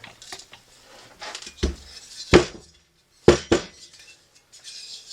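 Metal parts of a disassembled diesel air heater clinking and knocking as they are handled, with four louder knocks in the middle.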